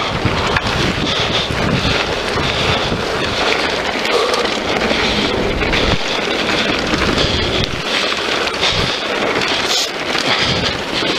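Wind rushing over the action camera's microphone, with the rumble and rattle of a Scott Voltage FR 730 downhill mountain bike rolling fast over a dirt and gravel trail. Many small knocks come through as the bike goes over bumps.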